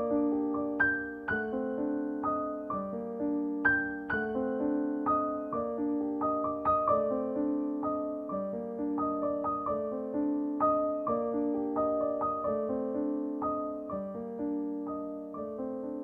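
Background piano music: a steady run of struck notes over held lower notes, with no pause.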